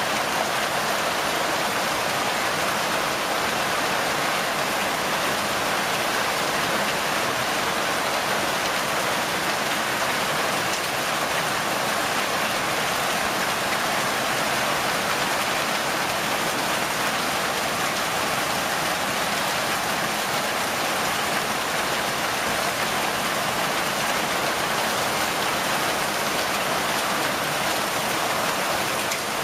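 Heavy hailstorm: hail and rain pelting down on parked cars, paving and lawn in a steady, dense rush that does not let up.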